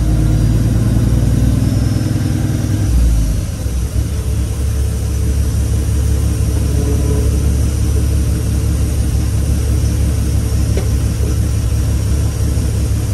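Kenworth W900 semi truck's diesel engine running as the truck drives slowly, heard from inside the cab. The engine note drops about three seconds in, then runs steady.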